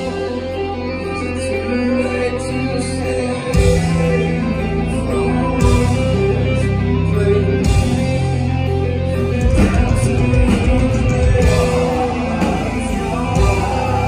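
Rock band playing live, heard from within the crowd: electric guitars and bass held over sustained notes, with drum and cymbal hits landing about every two seconds after the first few seconds.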